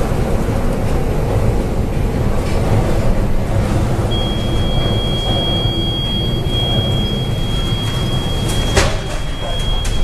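Loud, dense low rumble of a storm heard from inside a ship's bridge, with wind and heavy seas pounding the vessel. About four seconds in, a steady high-pitched electronic tone starts and holds. A single sharp knock comes near the end.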